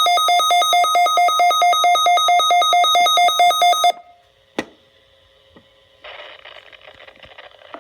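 Weather radio receiver's alert alarm beeping rapidly in a loud, high electronic pulse, set off by the NOAA Weather Radio Required Weekly Test. It cuts off sharply about four seconds in, a single click follows, and from about six seconds in there is faint radio hiss.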